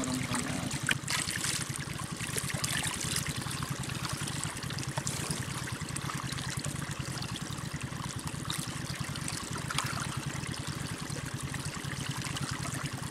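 Shallow water running and trickling steadily through a muddy channel, beside a bamboo fish trap.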